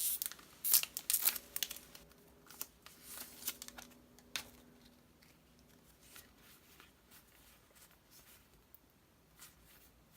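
Foil wrapper of a trading-card booster pack crinkling and tearing as it is opened, a dense crackle through the first four seconds or so, then only a few faint rustles and ticks as the cards are handled.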